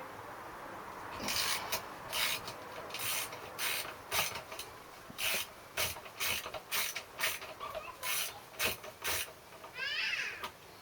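A ratchet wrench being worked to turn out the bolt that holds a small engine's fuel tank on: a string of short rasping ratchet strokes, some in quick runs. A brief high chirp sounds near the end.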